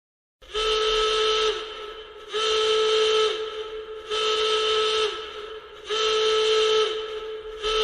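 Emergency alarm tone sounding in repeated horn-like blasts, each about a second long with a short gap between them, four full blasts and the start of a fifth, each ending with a slight drop in pitch.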